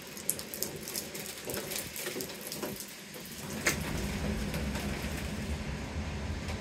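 Rain falling steadily, with many drops ticking against the window glass. About halfway through, a low rumble sets in and continues under the rain.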